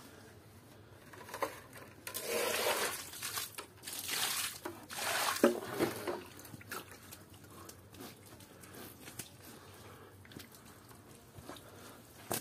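Water splashing onto a mud-caked stuffed toy in three loud rushes, followed by quieter wet squelches as a hand presses and kneads the soaked toy in shallow muddy water.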